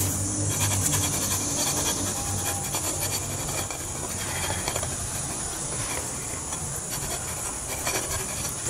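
A hand scraper rasping repeatedly across the bottom of a solid block of rendered beeswax, scraping the bottom layer off the block.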